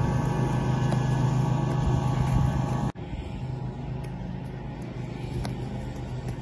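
A steady low hum that cuts off abruptly about three seconds in, leaving quieter steady background noise with a faint click near the end.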